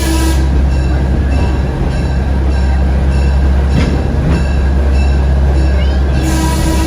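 Diesel locomotive hauling a passenger train, heard from the cars: a steady low engine drone over wheel and rail noise. A hiss with a squeal starts near the end.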